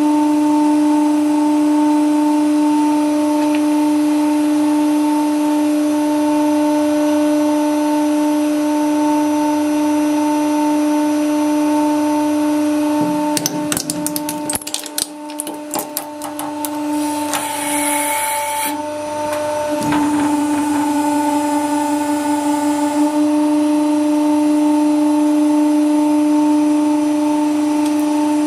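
Hydraulic press running with a steady hum while a chrome-plated lever tap is crushed. A cluster of sharp cracks and clicks comes about halfway through as the tap's metal breaks up, followed by a brief hiss, and then the hum carries on.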